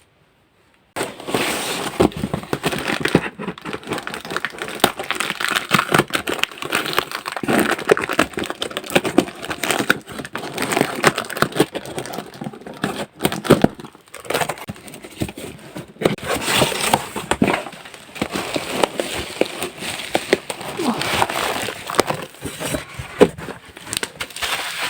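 Packaging being unwrapped and handled: continuous crinkling and rustling with many small clicks and scrapes. It starts after about a second of silence.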